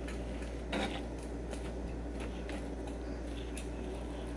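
Kitchen knife cutting through an omelette and tapping on a plastic cutting board: a few faint, scattered taps, one a little louder about three-quarters of a second in.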